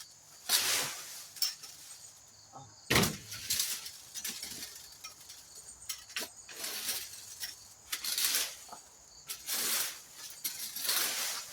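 An adjustable leaf rake dragged through dry fallen leaves and sticks: about seven crackling, rustling strokes, a second or two apart.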